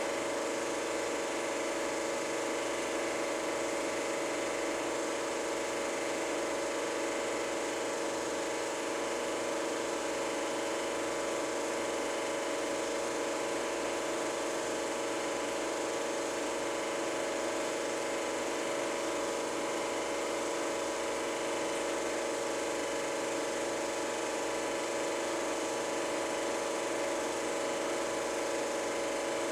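Super 8 film projector running, a steady motor whir with a constant hum of several held tones over a hiss.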